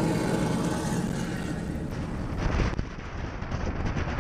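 U-2 Dragon Lady's jet engine running at takeoff power, a steady engine drone. At about two and a half seconds it gives way to gusts of wind on the microphone.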